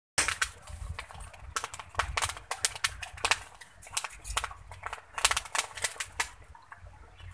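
Wood fire crackling with sharp, irregular pops as pork skin is singed in the flames, the pops thinning out near the end.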